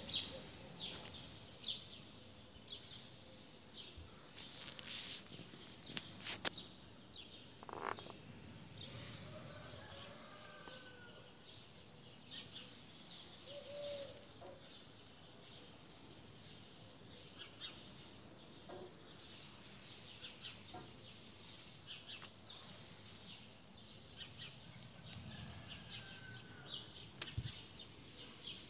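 Small birds chirping in many short, high notes, scattered throughout, over a faint steady background hum, with an occasional lower call now and then.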